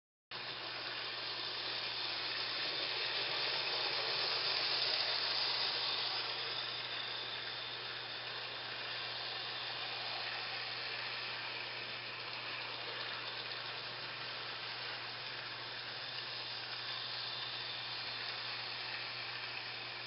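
N-scale model trains running on the track, a steady whirring hiss over a low steady hum. It swells around four to six seconds in, then eases.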